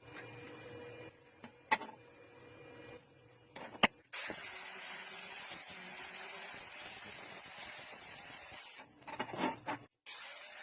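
A small power tool runs steadily for about four and a half seconds with a high, slightly wavering whine over a noisy hiss, after a few light clicks and one sharp knock. It stops with some clatter and starts running again near the end.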